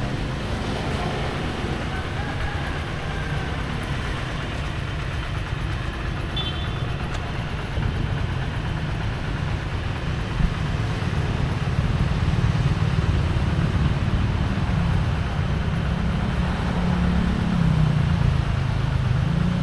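A nearby engine running with a steady low hum that grows louder about eight seconds in and wavers in pitch near the end. A short high beep sounds about six seconds in, and a single click comes a little after ten seconds.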